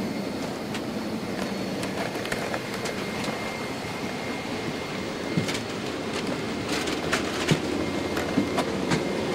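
Steady airliner cabin hum with a faint high whine running through it. From about five seconds in come scattered clicks and knocks of people moving and the camera being handled.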